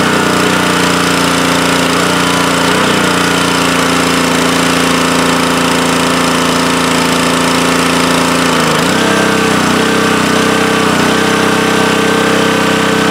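Honda GC190 single-cylinder engine running a pressure washer steadily, with the high-pressure water spray hissing. About nine seconds in, the engine note steps up to a higher pitch as the spray stops.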